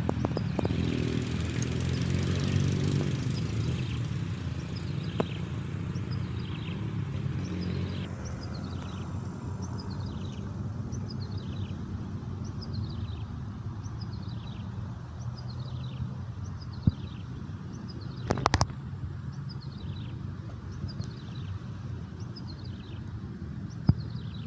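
A motor vehicle's engine rumbles past over the first several seconds, then fades. Over it a bird repeats a short falling chirp about once a second. There is a sharp knock about eighteen seconds in.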